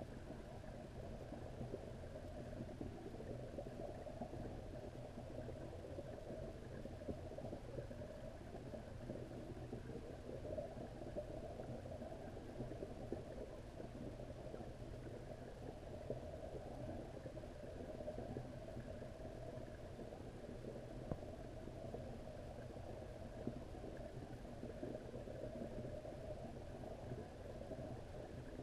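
Steady, muffled underwater rumble and churn of pond water, heard through the camera's waterproof housing, with a few faint ticks.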